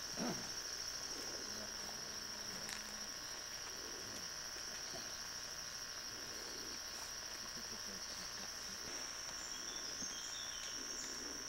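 Steady high-pitched drone of insects over a faint steady hum, with a brief low sound just at the start.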